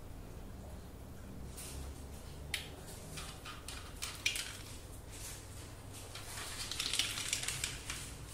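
Dry cat kibble clicking and crackling: a few separate clicks, then a denser crackling run near the end.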